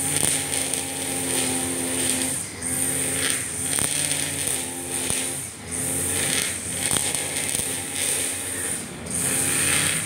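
Husqvarna 542RBS brush cutter's two-stroke engine running under load while its 2.2 mm round nylon line cuts short grass, with a steady high-pitched whine over the engine note. The sound dips briefly about every three seconds with the cutting sweeps.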